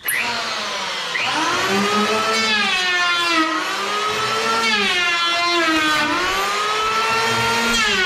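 Handheld electric wood planer starting abruptly and running at full speed while planing the top edge of a wooden cabinet. Its high whine dips in pitch each time the blades bite into the wood and climbs back between passes, several times over.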